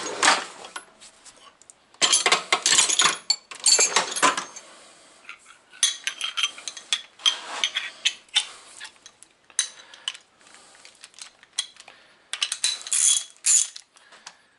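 Metal hand tools clinking and rattling in irregular bursts, as when searching through tools for a socket-wrench extension.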